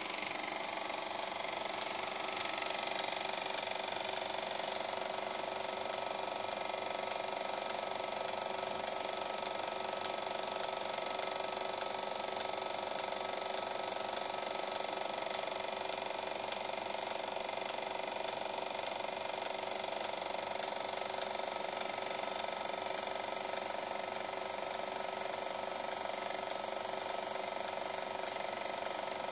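EIKI Slim Line 16mm film projector running: a steady motor hum with the fast, even clatter of the film-advance mechanism.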